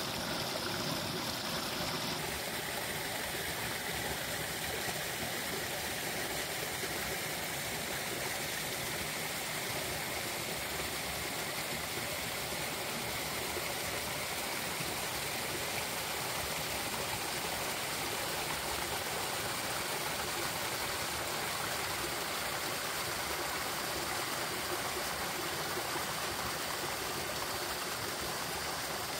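A thawing mountain stream running over rocks in small cascades between ice shelves and icicles: a steady rush of water. The tone of the rush shifts slightly about two seconds in.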